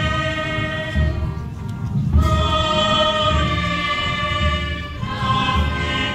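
Parish choir singing a slow Good Friday hymn with a wind band accompanying in long held chords. A low beat falls about once a second. The music thins briefly about a second and a half in, then swells again.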